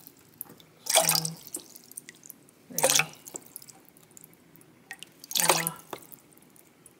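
Chicken stock being poured into a measuring cup in three short, splashy pours.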